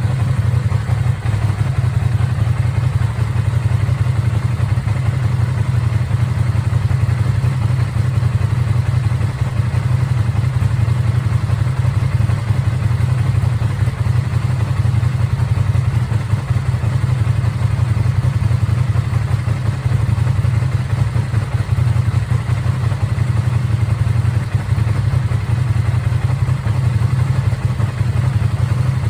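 Ducati Streetfighter V2's 955 cc Superquadro L-twin engine idling steadily through its stock exhaust.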